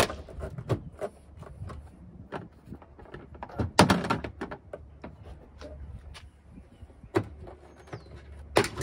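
Inner taillight housing of a 2019 Toyota RAV4 being pulled off the rear hatch: irregular plastic clicks and knocks as it is worked loose, with a louder clunk about four seconds in.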